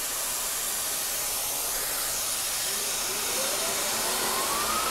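Air-driven mist coolant nozzle hissing steadily. From about three seconds in, a whine rises in pitch as the CNC Bridgeport mill's spindle speeds up.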